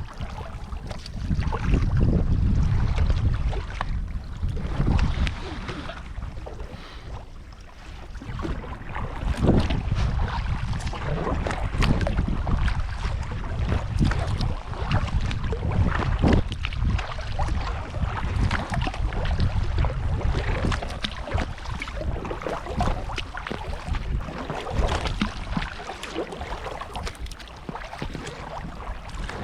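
Wind buffeting the microphone on a moving kayak, a strong uneven rumble, with water splashing and lapping from the paddle strokes and the hull.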